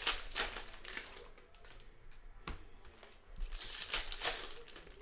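Plastic trading-card pack wrappers crinkling as the packs are handled and opened, in two bouts: one at the start and a longer one about three and a half seconds in.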